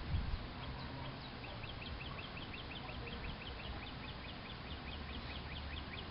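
A bird calling a long, rapid run of short high chirps, about five a second, starting about a second and a half in, over a low rumble of wind on the microphone.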